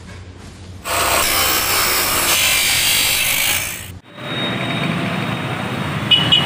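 Handheld angle grinder with a cutting disc running against material: a loud, harsh grinding for about three seconds that stops abruptly. Steady road traffic with motorcycles passing follows.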